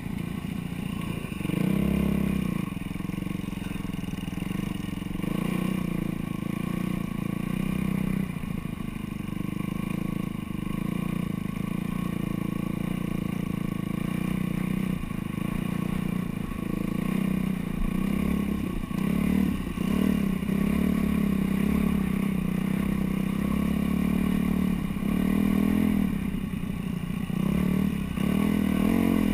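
Dirt bike engine running close under the rider, the throttle opened and eased off again and again, so the engine note swells and rises several times.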